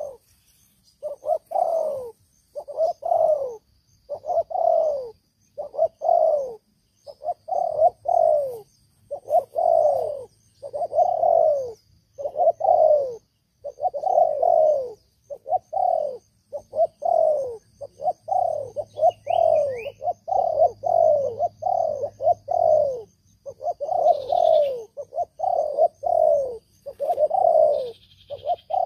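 Spotted dove cooing over and over. Each coo is about half a second long and falls in pitch, repeating roughly once a second with brief pauses. A small bird chirps faintly a couple of times about two-thirds of the way through.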